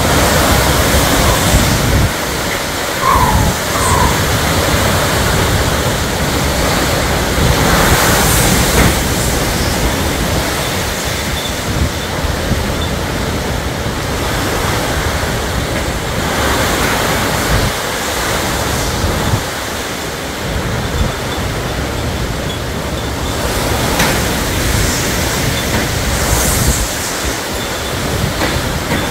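Hurricane Ian's wind and heavy rain: a dense, loud rush that swells and eases in gusts every several seconds.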